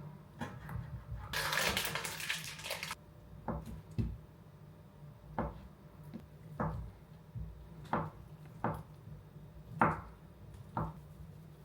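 Handling sounds in a small room: a short rustle, then about eight light, irregularly spaced knocks and taps of objects being set down or moved.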